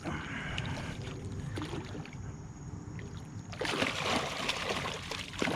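Hooked snook thrashing and splashing at the water's surface, a noisy wash of splashing that starts a little over halfway through, over a low rumble of wind and handling noise.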